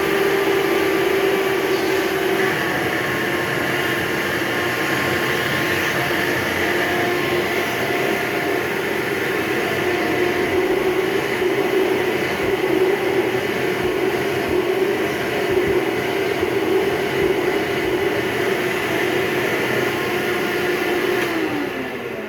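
Hoover Breathe Easy (SoftGuard) upright vacuum cleaner, a 7.3 amp model, running with a steady motor whine that shifts slightly in pitch now and then. Near the end it is switched off and the whine falls away as the motor spins down.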